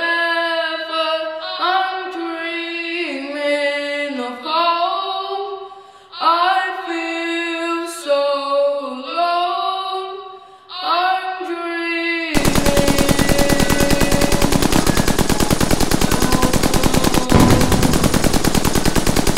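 A boy singing unaccompanied; about twelve seconds in, loud rapid machine-gun fire starts abruptly and runs on, drowning out the singing.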